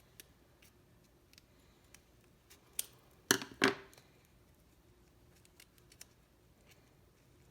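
A slap bracelet's springy steel strip, like a tape measure blade, handled and flexed: faint scattered ticks, then three sharp clicks a little before the middle, the last two loudest and about a third of a second apart.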